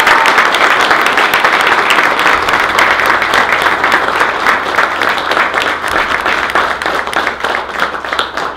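A crowd of guests applauding, many hands clapping at once, loud at first and slowly dying down near the end.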